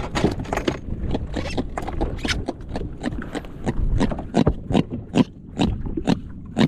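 A freshly landed jack flopping on the plastic deck of a personal watercraft: a run of irregular knocks and slaps against the hull.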